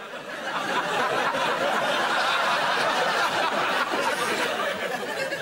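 Studio audience laughing, swelling about half a second in, holding steady, then dying down near the end.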